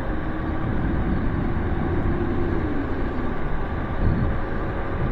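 Nanrobot Lightning 2.0 electric scooter riding along: low wind rumble on the microphone and road noise from the solid tyres, with a faint whine from its dual 800-watt motors that dips about three seconds in.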